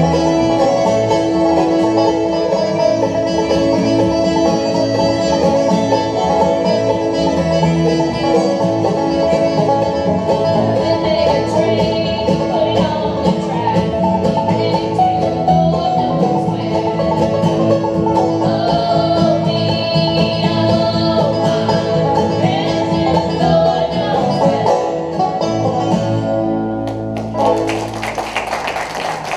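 Live acoustic bluegrass band, with banjo, fiddle, mandolin, acoustic guitar and upright bass, playing a traditional tune. The music ends about 27 seconds in and applause follows.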